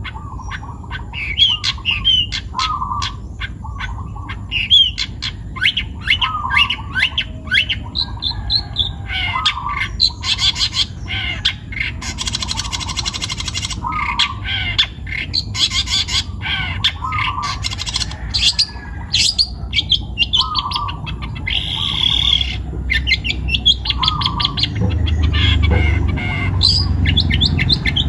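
A young long-tailed shrike (cendet) singing a busy, varied chattering song, repeating a short phrase every second or two and breaking into harsh rasping squawks about twelve seconds in and again near twenty-two seconds. A low rumble runs underneath and gets louder near the end.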